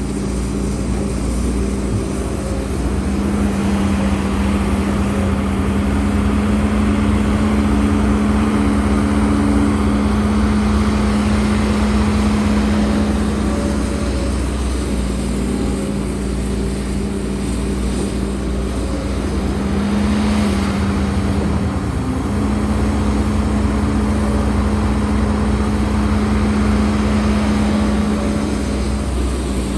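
Diesel engine of a HIDROMEK HMK230LC excavator running steadily under working load, a constant drone with a humming tone that briefly breaks and shifts in pitch about halfway through and again a little later as the load changes.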